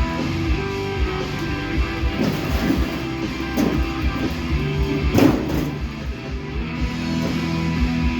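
Rock music with guitar, playing on a radio. A brief, louder noisy clatter comes about five seconds in.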